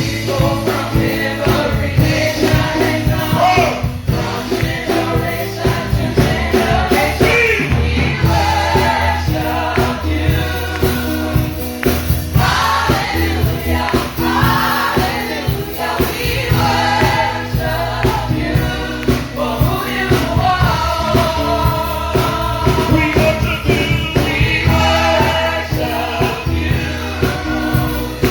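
Gospel choir singing over a band, with drums keeping a steady beat under the voices.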